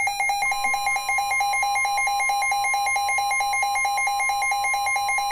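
NOAA Weather Radio receiver sounding an alert: a fast electronic beeping, roughly six or seven beeps a second, joined about half a second in by the steady 1050 Hz warning alarm tone, which signals that a warning, here a tornado warning, is about to be read.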